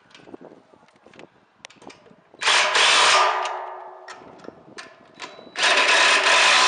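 Power drill running in two bursts of about a second each, the first about two and a half seconds in and the second near the end, used to tighten the satellite dish's mount bolts after the pitch adjustment. Small clicks and taps of hardware are heard between the bursts.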